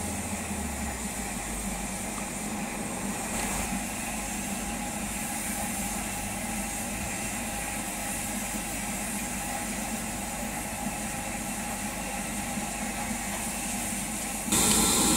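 BR Standard Class 4 2-6-0 steam locomotive standing at rest, simmering with a steady hiss and hum. Near the end the sound jumps suddenly to a louder, hissier level.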